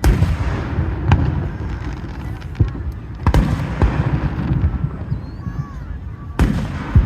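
Aerial fireworks shells bursting overhead: a string of about half a dozen sharp booms, with a low rumble between them.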